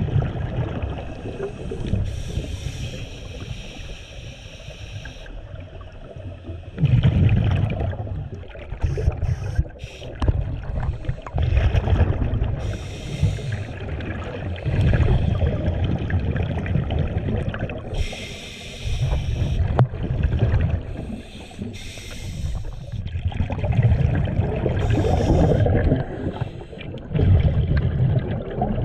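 Scuba regulator breathing underwater: a hissing inhale through the regulator, then a low burble of exhaled bubbles, repeating every few seconds.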